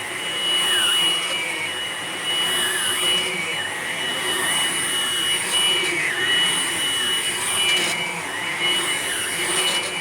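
Hoover Blade Plus vacuum cleaner running on carpet: a steady motor whine with a high tone over a rushing hiss of air, the whine dipping briefly in pitch every second or two.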